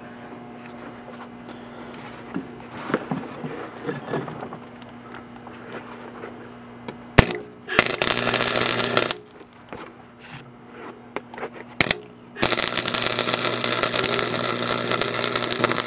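Electric arc welder laying short touch-up welds to fill holes in a bead: a steady hum and a few light knocks, then two stretches of loud, dense crackling from the arc. The first lasts about a second and a half, about halfway in; the second starts about three-quarters of the way in and keeps going.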